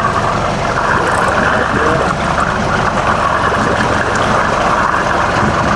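Sportfishing boat's engine running steadily at trolling speed, under an even rush of water.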